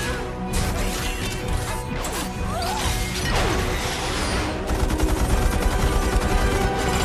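Action-film sound mix: score music under repeated crashes, blasts and falling debris as a house is torn apart.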